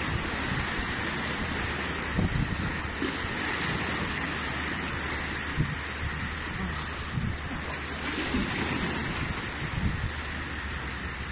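Wind buffeting the microphone, with low gusts now and then, over a steady wash of small lake waves on the shoreline rocks.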